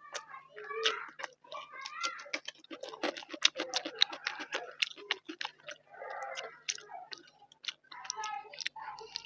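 Close-miked chewing of a mouthful of rice and curry: a dense run of wet mouth clicks and smacks.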